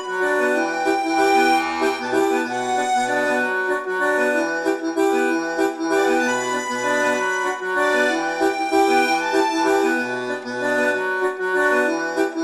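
Instrumental background music: held melody notes over a bass line that comes and goes.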